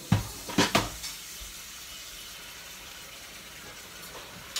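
Food sizzling gently in a frying pan, a steady faint hiss, with three sharp knocks in the first second.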